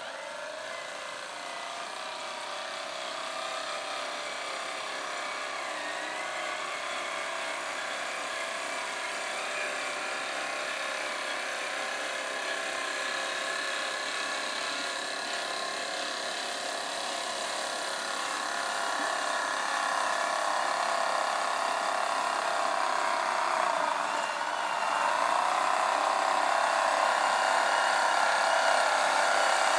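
Radio-controlled scale logging truck driving, its small electric motor and geared drivetrain whining with several tones at once. The whine grows steadily louder, and its pitch dips briefly and comes back up near the end.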